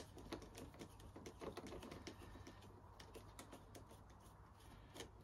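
Faint, quick, irregular metal clicks and ticks of a small spanner and screwdriver turning a bolt on a handlebar GPS mounting plate, with a sharper click at the start and another near the end.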